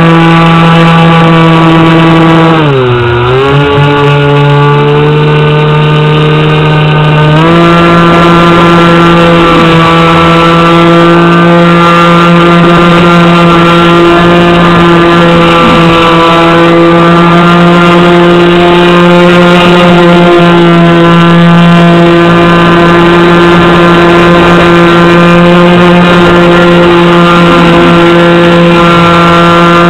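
Aquacraft Swamp Dawg RC airboat's brushless motor and air propeller, heard from on board, running with a steady high whine. About three seconds in the pitch drops sharply as the throttle eases. It holds lower for about four seconds, then jumps back up to full speed.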